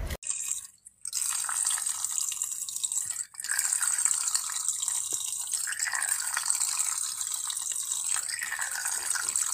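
Tap water running in a thin, steady stream into a basin, with two brief dropouts in the first few seconds.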